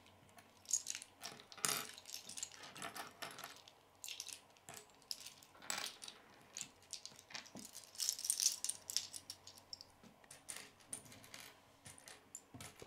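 Small Lego plastic pieces clicking and clattering as they are picked up, sorted and set down on a wooden tabletop, in scattered light clicks.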